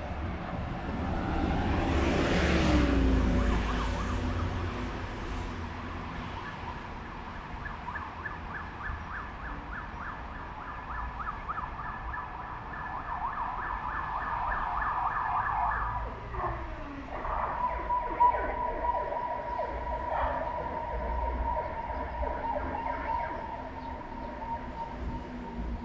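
Street traffic with a city bus passing close about two to four seconds in, its engine note dropping as it goes by. From about six seconds on, a steady, high pulsing tone that sounds like a siren carries on over the traffic hum, with another falling vehicle note near the middle.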